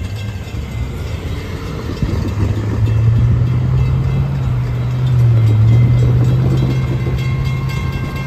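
A train running close by at a grade crossing: a loud, low, steady rumbling hum that grows louder about two seconds in and holds, with a brief dip in pitch midway.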